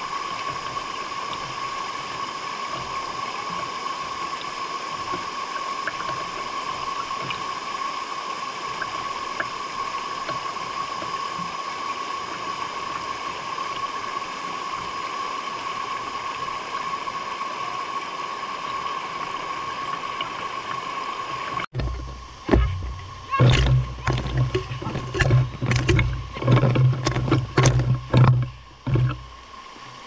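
Mountain valley stream running with a steady rush of water. About 22 seconds in, the sound cuts abruptly to a run of loud, uneven low rumbles and sharp knocks lasting several seconds.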